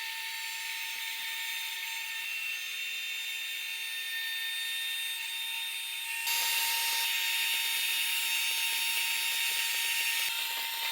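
Electric hot-air popcorn popper running: a steady fan whir with a high hiss and a steady hum tone. It gets louder about six seconds in.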